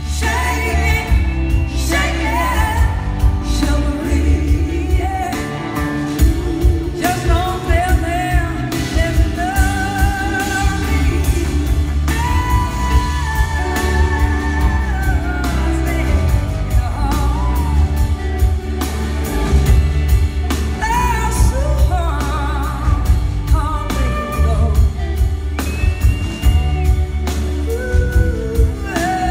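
Live blues-rock band in a large hall: electric guitars, drum kit and keyboard over a steady heavy beat, with a lead line of gliding, wavering notes on top.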